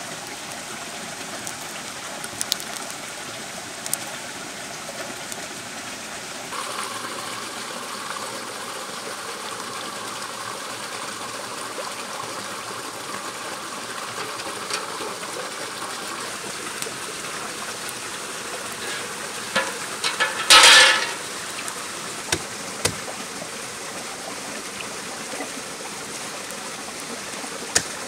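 A woodland stream flowing, a steady rushing of water with a few light clicks. About two-thirds of the way through comes one brief, loud burst of noise lasting about half a second.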